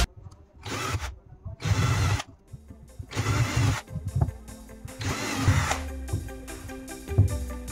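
A small power tool run in several short bursts of about half a second each, with faint background music coming back in the second half.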